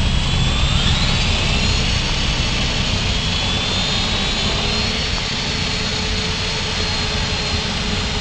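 Fixed-pitch, belt-driven micro RC helicopter with a metal rotor head: the electric motor and rotor whine rises in pitch over the first few seconds as it lifts off, then holds steady as it hovers, over a low rumble.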